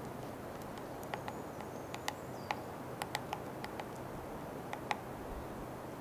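Three-toed woodpecker pecking at a dead tree trunk: about a dozen sharp, single taps at an uneven, unhurried pace rather than a drum roll, the sound of the bird chipping at wood and bark while foraging.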